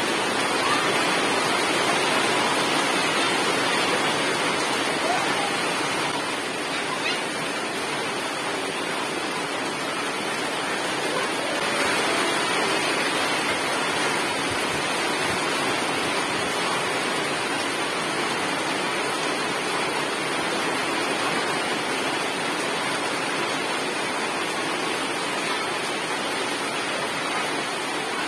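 Heavy tropical rain falling steadily, a continuous even hiss of rain on puddles and grass.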